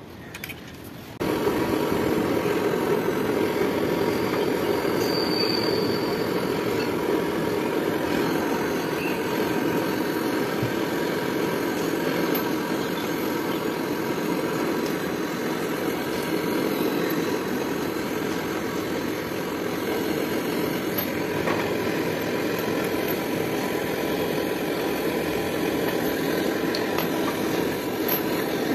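Gas brazing torch burning with a steady flame noise, lit suddenly about a second in, as a copper joint on the AC compressor line is heated for brazing.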